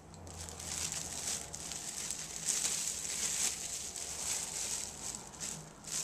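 Thin clear plastic bag crinkling and rustling as hands gather and spread it open on the counter, uneven and strongest around the middle.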